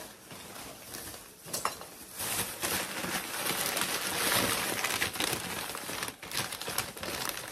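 Crinkling and rustling of packaging being pulled open by hand while a small pumpkin decoration is unwrapped, with irregular crackles, busiest in the middle.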